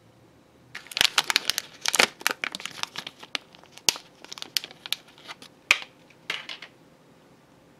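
Foil-backed plastic candy pack crinkling and tearing as it is peeled open: a quick, irregular run of sharp crackles that starts under a second in and stops about a second before the end.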